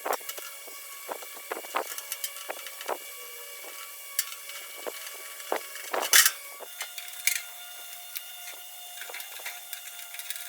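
Irregular light clicks and knocks of hand-work on a steel tool chest, metal parts and tools being handled, with one sharper knock about six seconds in, over a faint steady hum.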